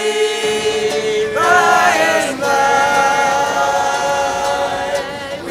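Background music: voices singing long, held notes together, choir-like, swelling about a second and a half in.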